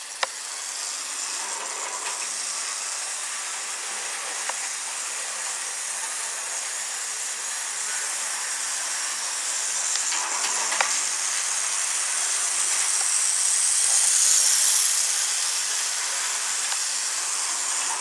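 Tyco Burlington Northern electric model diesel locomotive and freight cars running on the layout track: a steady whirring hiss from the motor and wheels, swelling about two-thirds of the way through, with a few faint clicks.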